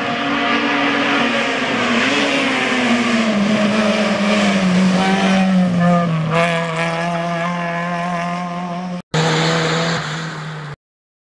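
Small hatchback race car's engine at high revs as it passes close by on a hill-climb road. The engine note falls in pitch over the first few seconds, then holds steady as it pulls away. It drops out for an instant about nine seconds in and stops abruptly near the end.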